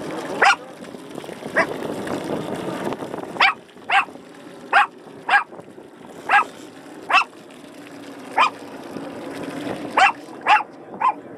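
An animal's short, sharp calls, about a dozen at uneven intervals, over a steady background noise.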